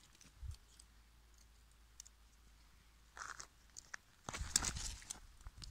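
A small dog chewing and biting on a pine cone, giving two short bursts of crunching, the second and louder one about four and a half seconds in.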